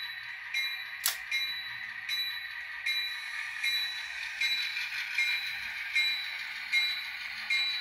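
Diesel locomotive bell from the LokSound sound decoder in an N scale Atlas GP38-2, ringing steadily at about one strike every three quarters of a second over a faint diesel engine sound. One sharp click about a second in.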